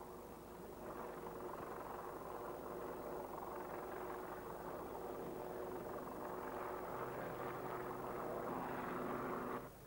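A steady engine drone with a few held tones running through it, slowly growing louder, then cutting off abruptly near the end.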